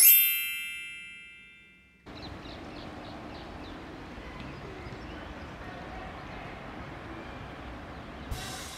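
A bright, bell-like metallic chime struck once, ringing and fading for about two seconds before cutting off abruptly. Then steady outdoor background noise with a few faint bird chirps.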